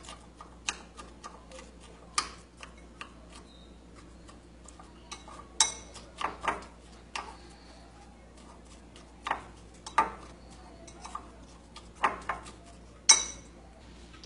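Metal spoon clinking and scraping against a glass bowl while mixing crushed Oreo cookie crumbs. Irregular clinks come every half second to a second or two, the loudest about a second before the end.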